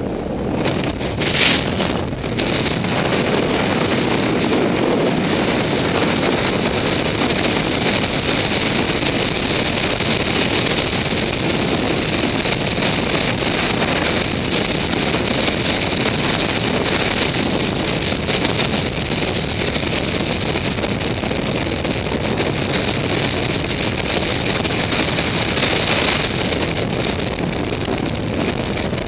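Loud, steady rush of freefall wind buffeting a skydiver's helmet-mounted camera microphone, with a brief louder burst about a second and a half in.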